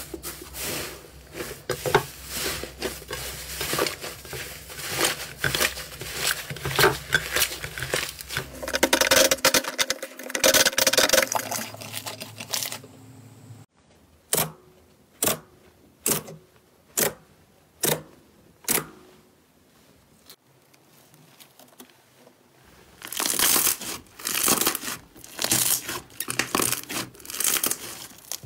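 Slime being squished and pressed by hand: dense crackling and popping, then a run of six sharp pops about a second apart, a short lull, and more crackling near the end.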